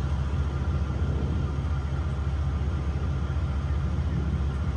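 Steady low rumble of an idling engine, running evenly without change.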